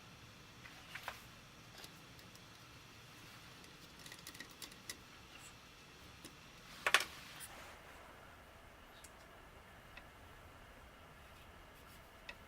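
Scattered small clicks and taps of metal tools and rifle parts being handled, the loudest a sharp clack about seven seconds in.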